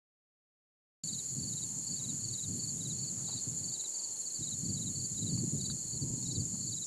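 Insects chirping in outdoor field audio that starts about a second in: a steady high whine with a repeating chirp about three times a second, over an uneven low rumbling noise.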